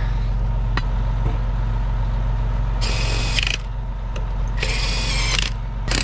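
Cordless impact wrench run in two short bursts, about three seconds in and again near the end, on the lug nuts of a harrow wheel during a change of a popped tire. A steady low hum continues underneath.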